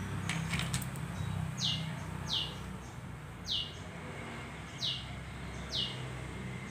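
A small bird chirping: five short, high chirps, each falling in pitch, about a second apart, over a steady low hum. A few light clicks come near the start.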